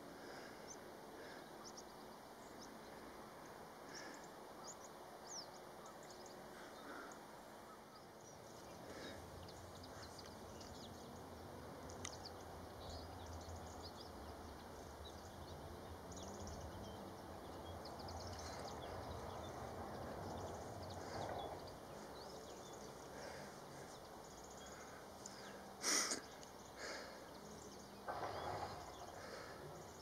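Faint outdoor ambience with scattered distant bird calls, short high chirps now and then. One sharp click near the end is the loudest sound.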